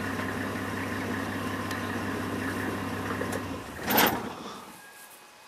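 Vehicle engine idling steadily, then stopping about three and a half seconds in. A short, loud thump follows just after, and only faint background is left.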